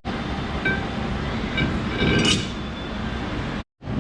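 A few light metallic clinks with a short ring, over a steady low rumble, and a brief louder swish a little after two seconds in.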